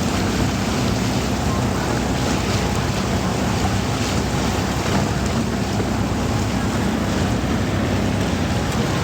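Small outboard motor of a motorized bamboo raft running steadily, with wind noise on the microphone.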